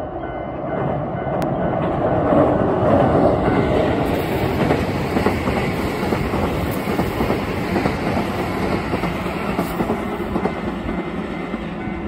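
Keihan 2400 series electric train passing close by at speed: steady rolling noise with the wheels clicking over the rail joints, swelling about two seconds in. A level-crossing bell rings faintly behind it.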